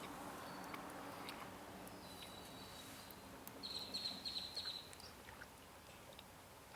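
A small bird chirping: a thin high whistle, then a quick run of high chirps about halfway through, over faint outdoor background.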